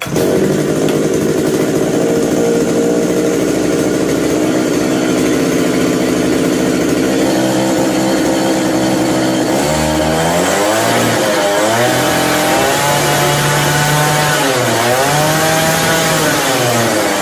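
Mini tiller's small petrol engine running, now that a new carburetor has been fitted: steady for the first half, then from about ten seconds in revved up and down several times as the throttle is worked by hand.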